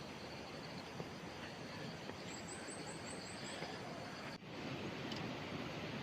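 Steady outdoor background hiss with a small bird's quick run of about seven short, high rising chirps a little past two seconds in. The sound briefly drops out near the end.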